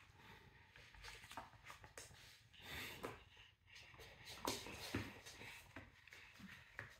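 Faint shuffling and movement noise, with scattered soft taps and knocks and a brief rustle about three seconds in.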